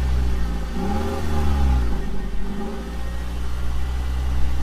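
Car engine running, revving up and falling back about a second in, then settling to a steady idle.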